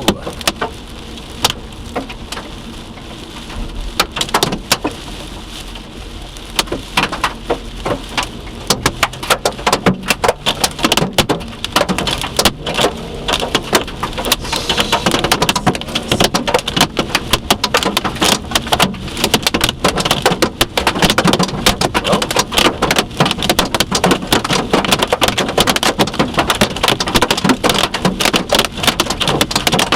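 Hailstones striking a Subaru's body and glass: scattered sharp hits at first, thickening from about nine seconds in into a dense, constant pelting over a rain-like hiss. This is the hail that damaged the car.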